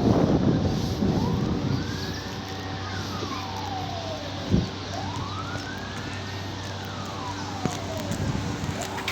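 Emergency vehicle siren in a slow wail, its pitch rising and falling about every four seconds, over low rumbling noise in the first couple of seconds. A single short thump comes about halfway through.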